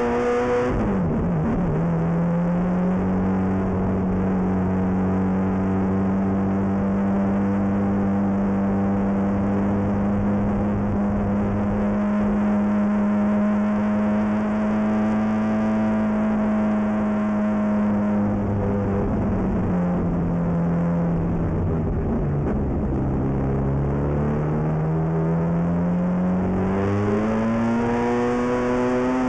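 Ferrari F430 GT race car's V8 engine heard from inside the cabin, pulling at steady revs after a brief dip in pitch just after the start. About eighteen seconds in the revs fall away for a few seconds, then climb steadily again as the car accelerates toward the end.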